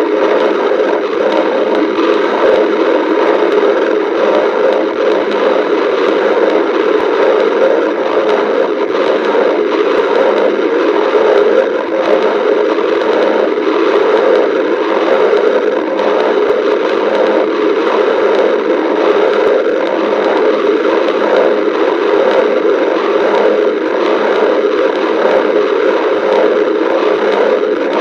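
A person's stomach growling and gurgling without a break, a dense rumbling noise that stays loud and even.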